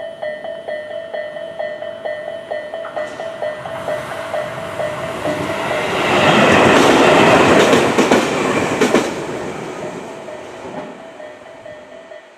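A Japanese railway crossing alarm rings in rapid repeated strokes, about three a second, while a Tobu Kameido Line two-car train passes over the crossing. The train's wheel rumble swells to the loudest point about halfway through, with a few sharp wheel clacks, then fades away as the crossing bell is heard again near the end.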